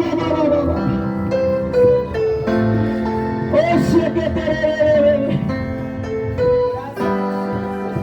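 Slow worship music on an electric keyboard, held chords under a simple melody, with a voice singing along for a few seconds about halfway through.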